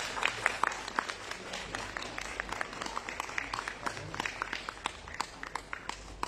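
Audience applauding, many hands clapping unevenly and thinning out toward the end.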